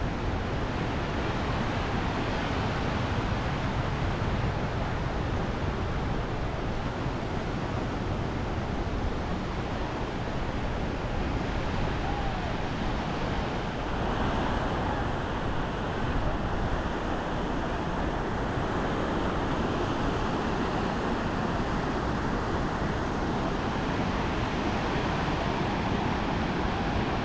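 Small surf breaking and washing up on a sandy beach, a steady rush of water, with wind rumbling on the microphone.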